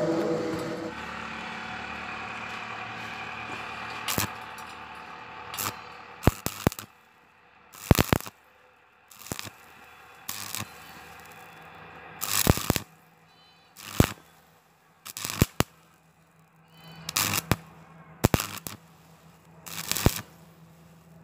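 Stick-welding arc crackling on thin square steel tubing in about a dozen short bursts with quiet gaps between them: the arc is struck and broken off again and again rather than run as one continuous bead.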